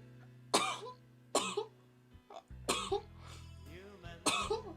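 A woman sneezing four times in quick succession, each a short sharp burst.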